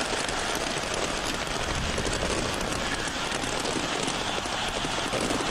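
Large stadium crowd cheering as a steady dense roar, with a rapid crackle of firecrackers and fireworks going off throughout.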